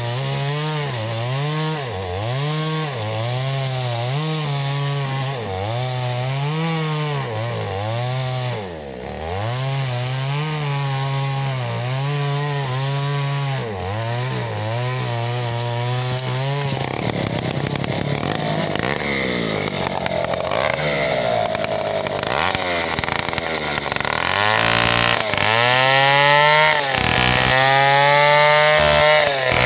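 Two-stroke chainsaws cutting sengon wood, the engine pitch rising and falling over and over as the saw bites and eases off. About 17 seconds in the sound turns rougher and noisier, and near the end a chainsaw runs at high revs, ripping a large log lengthwise into planks.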